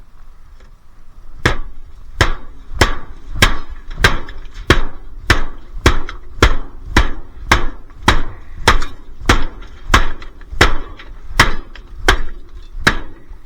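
A small axe striking again and again in a steady rhythm, about three blows every two seconds, knocking unwanted material off a stripped dishwasher part.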